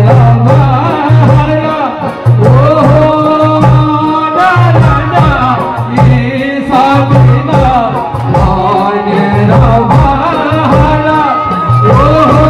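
Kumaoni folk song: a voice singing a wavering melody over a steady drum beat and a sustained low tone.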